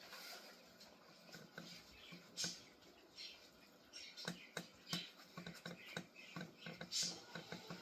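Scrub Daddy streakless cloth wiping a refrigerator's handles: quiet rubbing with a couple of brief squeaks, and many small clicks and taps of hand and cloth on the handle, coming more thickly in the second half.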